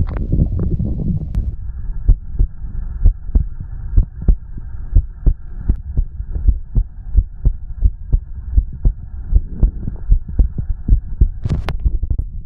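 Heartbeat: low, evenly spaced double thumps about once a second. A low rumble of the stomach fades out in the first second or so, and a brief scratchy rub sounds near the end.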